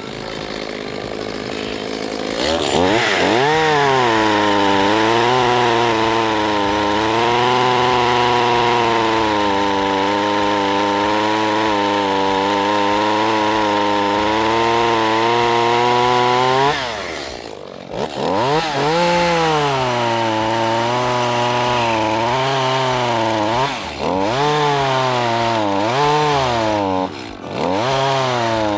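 Gas chainsaw revving up and cutting through a cedar log, held at full throttle for about fourteen seconds with its pitch wavering under load. It then drops back briefly and cuts again in several shorter surges of throttle.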